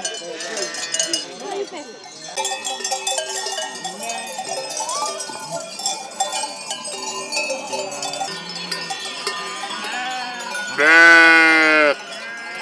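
Sheep bells clanking and ringing as a flock of sheep moves about, with sheep bleating; one long, loud bleat about 11 seconds in.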